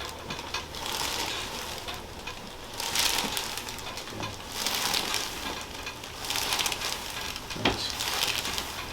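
Rustling and rubbing of clothing and bodies shifting on a chiropractic treatment table during a shoulder adjustment, coming in several swells, with one sharp click near the end.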